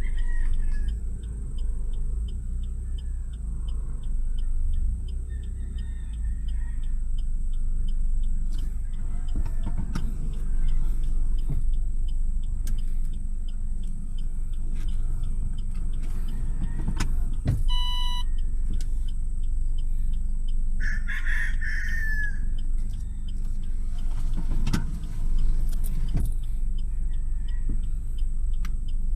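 Steady low rumble with occasional knocks. A rooster crows once, about 21 seconds in.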